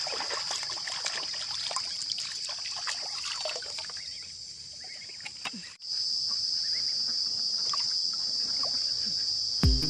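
Hands splashing and swishing in shallow river water while washing, with a steady high-pitched insect drone throughout that grows louder after about six seconds.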